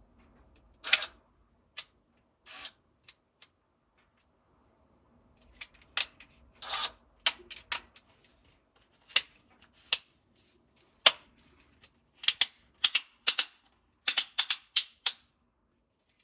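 Sharp clicks and knocks of hard plastic parts being handled, scattered at first, then coming quickly in a cluster for the last few seconds, over a faint steady hum.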